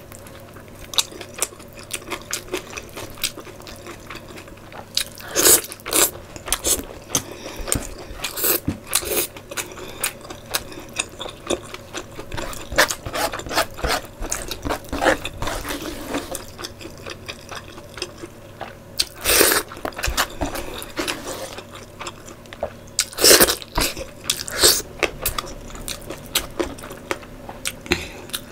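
Close-miked chewing and biting of pork curry and dhido eaten by hand: wet mouth sounds, crunches and lip smacks, with a few louder bursts about five, nineteen and twenty-three seconds in.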